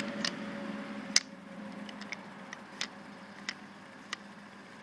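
Spring-loaded ball detent in the movable head of an All American Sharpener 5005 clicking into its milled pockets as the head is swung through its angle stops. It gives a series of sharp clicks, roughly one every two-thirds of a second, the loudest a little over a second in.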